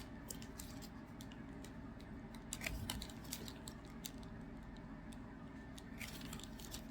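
Faint rustling and light clicks of trading cards being handled and flipped through, with a soft knock about three seconds in.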